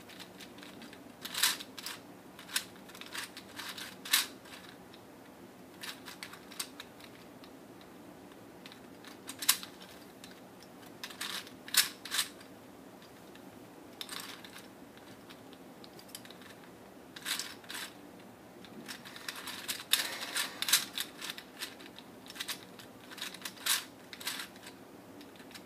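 Meffert's Gear Ball plastic puzzle being twisted by hand: irregular sharp clicks and clacks of its plastic gears and faces, some single, some in quick runs, busiest about twenty seconds in.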